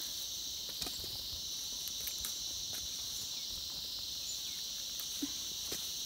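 Steady high-pitched insect chorus, with a few faint clicks and rustles of leaves and vines being handled.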